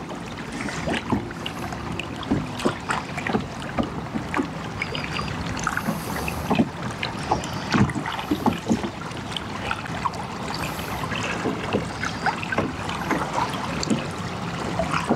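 Choppy river current slapping and splashing against a fishing kayak's hull while it trolls, in many short irregular slaps.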